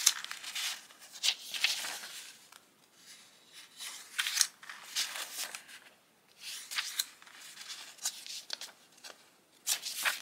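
Sheets of vellum and printed decorative paper being leafed through and slid over one another by hand, a series of crisp rustles coming every second or two with short quiet gaps between.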